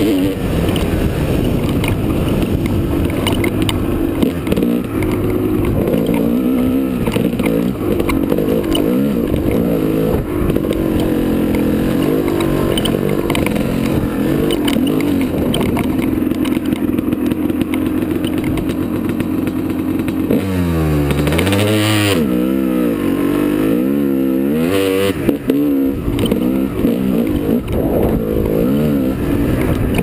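Dirt bike engine running under throttle while riding a dirt trail, the revs rising and falling with the throttle. For several seconds in the second half the revs swing up and down quickly, over and over.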